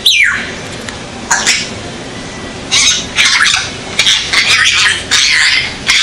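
African grey parrot calls: a whistle falling in pitch at the start and a short harsh call about a second later, then a run of five or six loud, harsh, high-pitched squawks in the second half.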